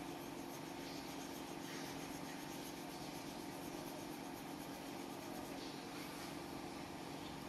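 Pencil shading on paper: soft scratching strokes that come and go, over a steady low electrical hum.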